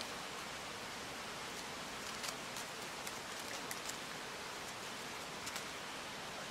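Steady outdoor background hiss, with a scattering of faint sharp clicks between about two and six seconds in.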